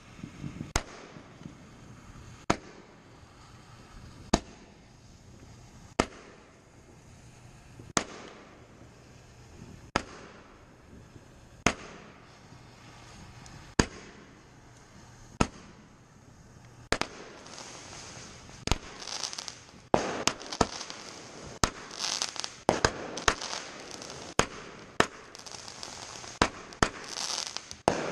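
Aerial fireworks going off: single sharp bangs about every two seconds, then, just past the middle, faster bangs mixed with crackling.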